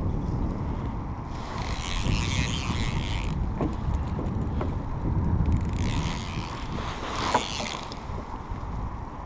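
Wind buffeting the microphone as a steady low rumble, with two hissing rushes of about two seconds each, one early and one past the middle, and a few light clicks.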